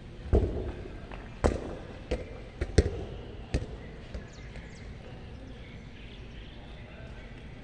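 Six sharp thumps over about three seconds, unevenly spaced, the first and the fourth loudest, followed by a steady outdoor background.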